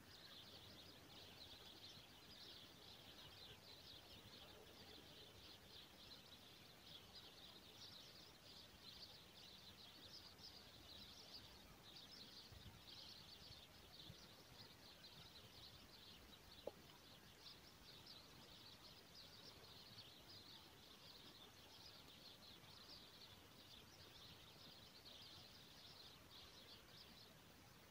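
Near silence: quiet outdoor ambience by a reed-lined pond, with faint, continuous high-pitched chirping throughout and a single small click about seventeen seconds in.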